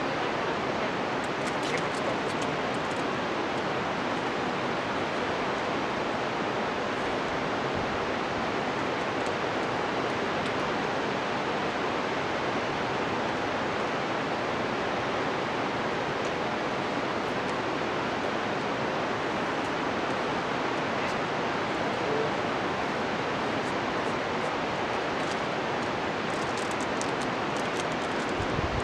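Glacial meltwater of the Carbon River rushing steadily: an even, unbroken hiss of water. A few faint clicks near the end.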